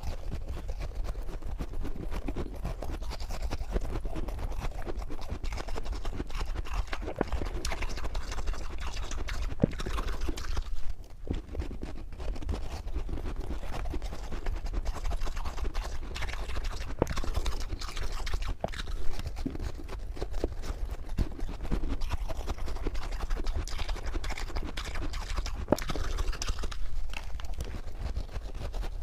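Close-up chewing and crunching of soft, powdery freezer frost in the mouth, a dense irregular run of small crunches with a brief pause about eleven seconds in. A steady low hum runs underneath.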